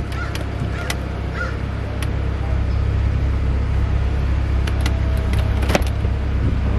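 BMW 135i convertible's power soft top opening and folding back: a steady low hum with several clicks and knocks from the roof mechanism, the loudest near the end.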